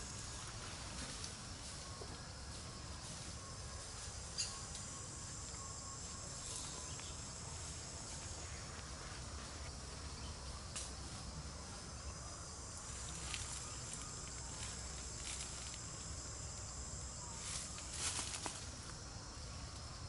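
Steady high-pitched insect chorus, with a few short, sharp clicks.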